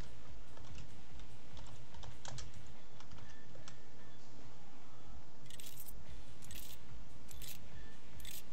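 Typing on a computer keyboard: scattered key clicks that grow denser in the second half, over quiet background music.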